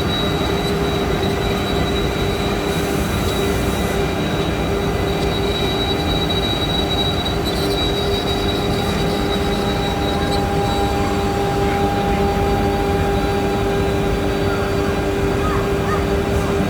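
DeKart S6060 desktop CNC milling machine cutting D16T duralumin: a steady spindle whine made of several held tones over the constant rasp of the end mill in the aluminium.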